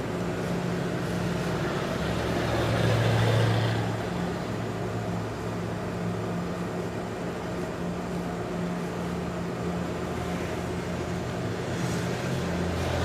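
A car passing on a snowy street: tyre and engine noise swells about three seconds in and fades, over a steady low hum. Another vehicle approaches near the end.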